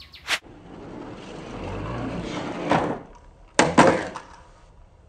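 Small toy monster truck rolling with a rising rumble for a couple of seconds, then two sharp clattering knocks a fraction of a second apart as it strikes a hard surface. A single click comes just before the roll.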